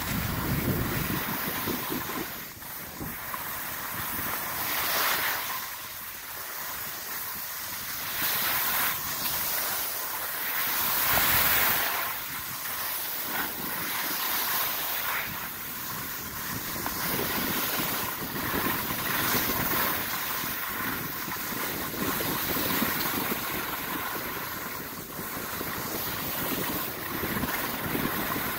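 Skis sliding and scraping over packed snow on a downhill run, swelling and easing every few seconds, with wind on the microphone.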